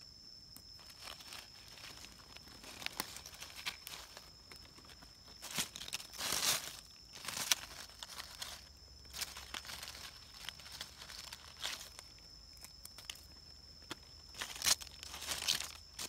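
Dry fallen leaves crackling and rustling as hands dig through leaf litter, in scattered short bursts. The loudest crackles come about six seconds in and again near the end.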